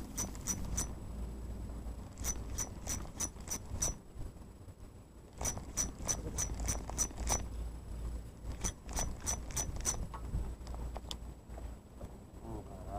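Small spinning reel (Okuma Altera 20) being cranked in four short bursts, its mechanism clicking about five times a second with each burst, as line is wound in. A steady low rumble runs underneath.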